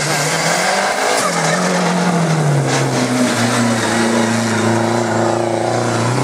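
Race car engine running hard at high revs on a hillclimb stage, its pitch dipping and climbing several times, with a sharp drop near the end.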